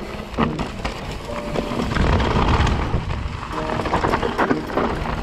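Mountain bike rolling fast down a dirt trail: tyres rumbling over loose dirt, the bike rattling and knocking over bumps, and wind on the microphone. The low rumble grows heavier from about two seconds in.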